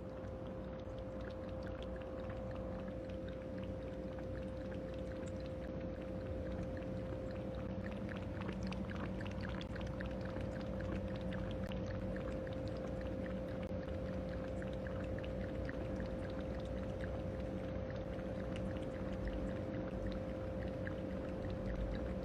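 Water running steadily, with a constant hum underneath.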